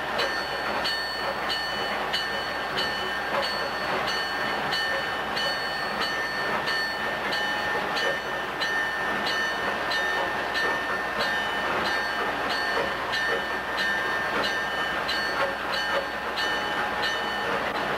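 Locomotive bell ringing steadily, a bit under two strokes a second, over the running engine and wheel noise of Wabash 51 moving in the yard.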